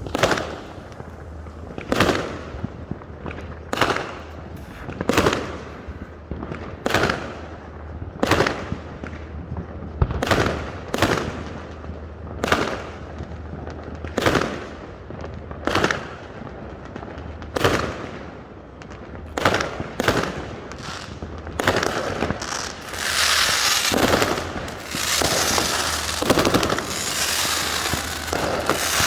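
Fireworks going off: a string of separate bangs, one every second or two, each fading out quickly. About two-thirds of the way through, a dense, continuous crackling takes over as many go off at once.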